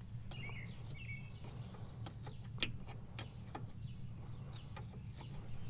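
Scattered light clicks and taps of small parts being handled, with a couple of faint bird chirps in the first second, over a low steady hum.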